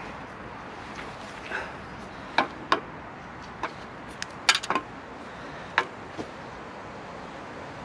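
Sharp clicks and snaps of small hard objects being handled: about eight of them, irregular, with a quick cluster about four and a half seconds in.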